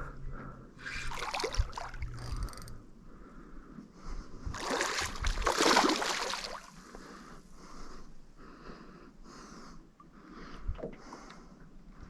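Water splashing as a hooked fish thrashes at the surface during the fight, in two main bursts with smaller splashes between.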